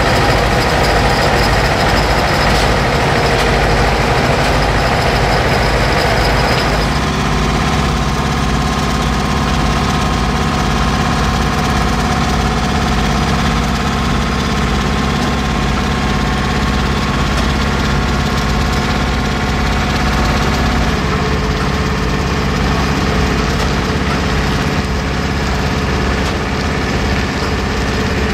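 Heavy-haul truck diesel engines running steadily: a continuous low engine drone with steady tones. The sound changes abruptly about seven seconds in, and a further steady tone joins later.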